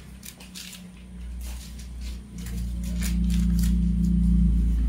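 A low, steady hum that grows louder from about halfway through, with faint clicks and rustles of a microphone being handled.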